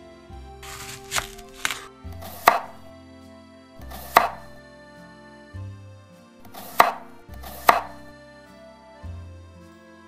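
Miniature knife cutting a tiny potato on a wooden cutting board. The blade knocks sharply on the wood about six times at uneven intervals, with a short scraping cut around the first two knocks.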